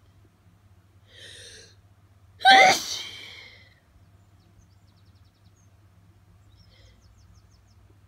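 A person sneezing from hayfever: a sharp breath in about a second in, then one loud sneeze that trails off into an exhale.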